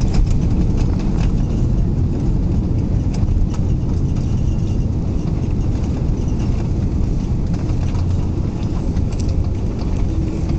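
Airliner cabin noise while rolling on the ground after landing: a steady low rumble of engines and wheels on the wet runway, with a few light knocks.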